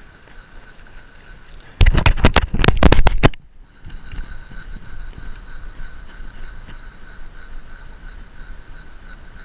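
Loud, rapid knocking and crackling handling noise on the microphone for about a second and a half, about two seconds in, as the fishing rod is grabbed. Before and after it there is only a faint, steady background rumble.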